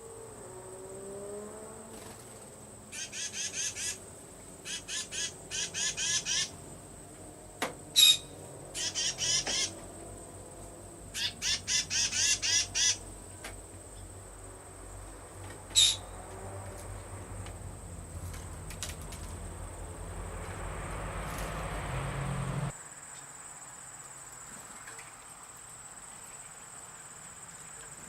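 Birds calling in four bursts of rapid, repeated notes over a steady high-pitched insect drone. A low rumble builds in the second half and stops abruptly.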